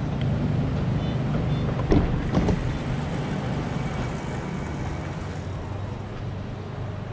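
Steady low hum of an electric regional train, a Siemens Desiro HC, standing at the platform, heard from its open doorway and vestibule. Two knocks about two seconds in, half a second apart, from stepping aboard.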